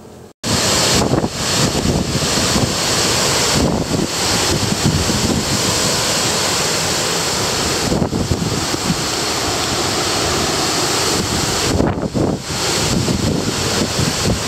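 Strong, gusty thunderstorm wind tossing tree leaves and buffeting the microphone. It starts abruptly about half a second in, with brief lulls between gusts.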